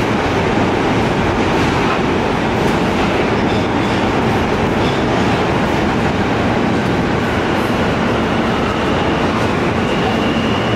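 NYC subway R160 car running between stations, heard from inside the car: a steady rumble of wheels on rail and running gear, with a faint high tone coming in near the end.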